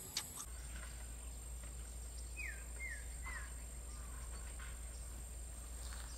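Outdoor rural ambience: a small bird gives three quick chirps, each falling in pitch, about two and a half seconds in, over a steady high-pitched insect drone and a low steady hum.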